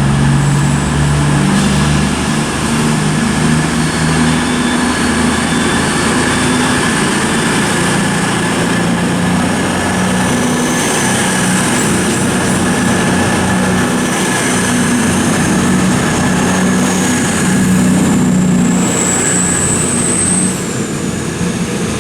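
Class 220 Voyager diesel-electric train pulling out, its underfloor diesel engines running with a steady low drone. A thin high whine rises slowly through the second half and drops away near the end.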